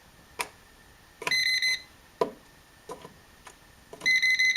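Voltage tester beeping in a steady high tone: one short beep of about half a second, then a longer one starting near the end, with faint clicks of the tester probe against the outlet between them. The beep marks a live slot, here showing the outlet wired backwards, with hot and neutral reversed.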